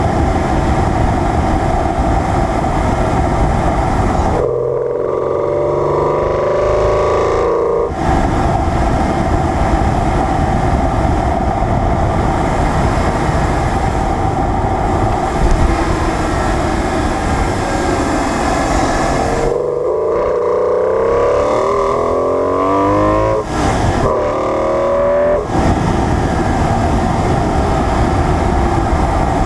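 BMW E46 M3's S54 inline-six heard through its intake while driving, picked up beside the front fog light, with heavy wind and road noise. The engine note climbs under acceleration about four seconds in, and again from about twenty seconds in, with a short break near the end of that run.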